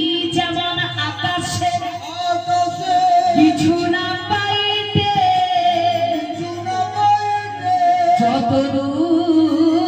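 Bengali devotional kirtan singing with instrumental accompaniment. The voice holds long, wavering notes over a steady low drone.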